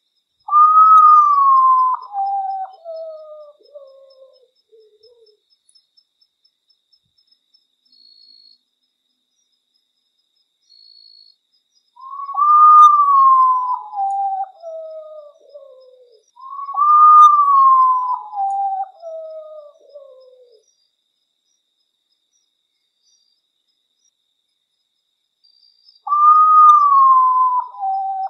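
Common potoo (urutau) singing its mournful song: four phrases of whistled notes, each starting high and falling step by step over about four seconds. One comes near the start, two follow close together in the middle, and the last begins near the end.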